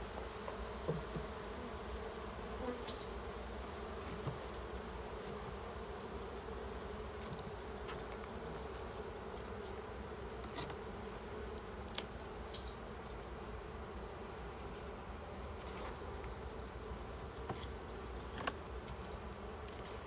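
Honey bees buzzing around an open hive: a steady hum, with a few faint clicks.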